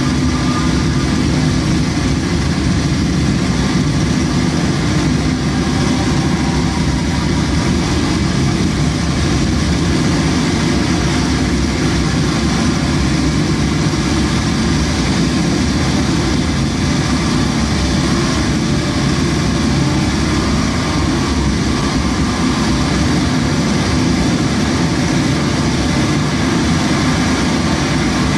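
Harsh noise music: a loud, unbroken wall of distorted noise with a heavy low rumble and a hissing top.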